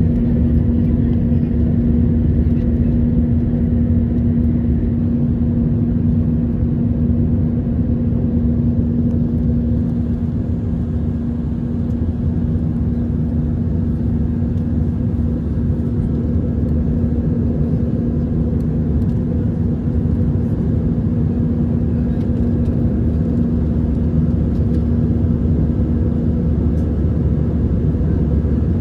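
Airbus A320 cabin noise during the climb: a steady drone of the engines and rushing air, with a steady low hum running through it, heard from a window seat over the wing.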